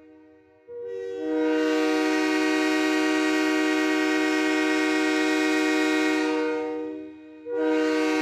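Train horn sounding a long steady blast of about six seconds that begins about a second in, several notes together, then fades; a second blast starts near the end.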